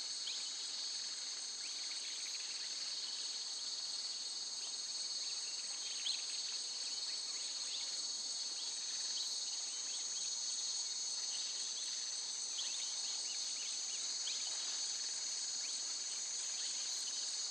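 Steady chorus of insects, such as crickets, trilling: a continuous high-pitched buzz, with a few faint ticks and rustles underneath.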